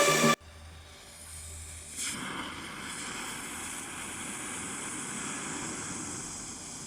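Small consumer firework catching about two seconds in and then burning with a steady hiss. Electronic music cuts off at the very start.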